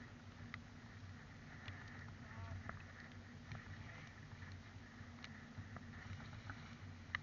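Multihull sailboat under way: a faint, steady low rumble of wind and water against the hull, with scattered light clicks and taps and one sharper click near the end.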